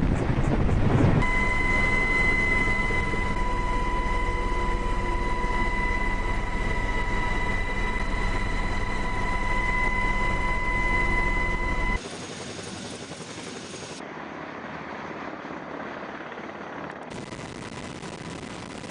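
Chinook helicopter running: a loud rotor and engine rumble with a steady high whine over it. About twelve seconds in it cuts abruptly to a quieter, hissing helicopter noise.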